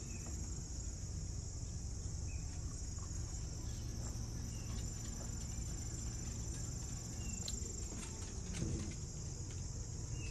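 Steady outdoor chorus of insects, a continuous high-pitched chirring that does not let up, over a low steady hum.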